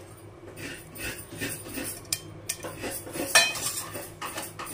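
A spoon clinking and scraping against a bowl and a metal pan in short, scattered taps as a beaten egg is emptied over raw chicken pieces. The sharpest clink comes a little past three seconds in.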